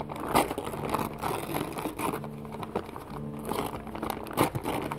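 Gift packaging crinkling and rustling in irregular handfuls as a present is unwrapped by hand.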